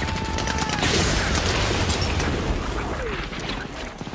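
Battle sound effects of a beach landing: a constant low rumble of explosions and surf under scattered rifle and machine-gun fire, with the shots thickest in the first second.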